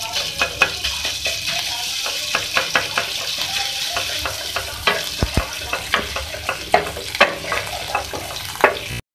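Ginger-garlic paste sizzling in hot oil in a metal frying pan, stirred with a wooden spatula that scrapes and knocks against the pan many times. The sizzle cuts off suddenly near the end.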